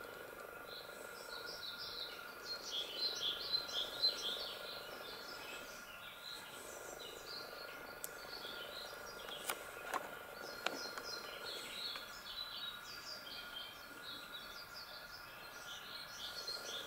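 Small birds chirping and twittering over a steady outdoor background, with a faint steady tone underneath; the chirping is busiest about three seconds in.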